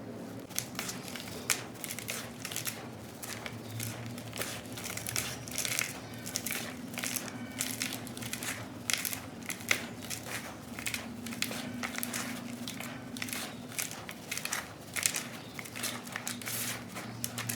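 Clumps of soft black sand being crumbled, giving many quick, irregular crunches and crackles.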